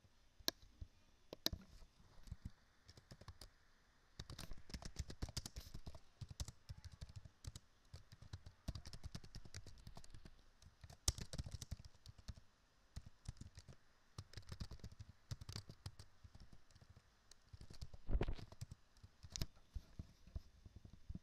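Computer keyboard typing in quick runs of keystrokes with short pauses, after a few single clicks. There is one louder knock near the end.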